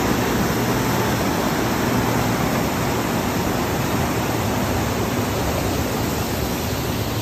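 A muddy river in flood rushing past: a steady, even rush of fast water, the river overflowing its banks after record rain.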